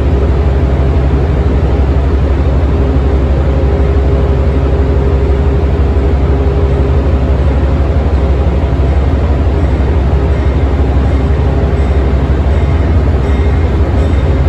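GE P42DC diesel locomotive engine running with a loud, steady low rumble and a steady hum over it.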